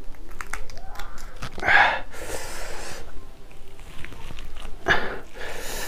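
A man eating raw chili, with wet chewing and mouth clicks and sharp breaths drawn through the mouth: a strong gasp about two seconds in, followed by a hiss of air for about a second, and another gasp near the end.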